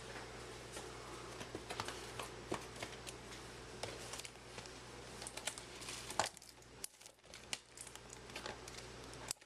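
Faint crinkling and tearing of the plastic wrapper on a pack of baseball trading cards as it is opened, with scattered small crackles and a sharper snap about six seconds in.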